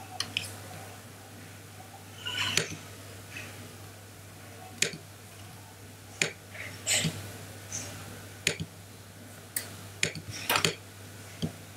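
Computer mouse clicks, a dozen or so sharp clicks at irregular intervals, over a faint steady hum.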